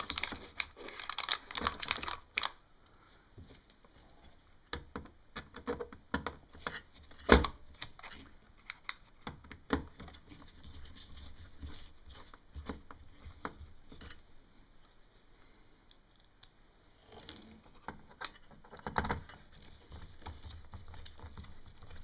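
Light clicks, taps and scrapes of small screws being fitted with a small Torx screwdriver into a metal drive bracket. A sharp click comes about seven seconds in, and another cluster of clicks near the end.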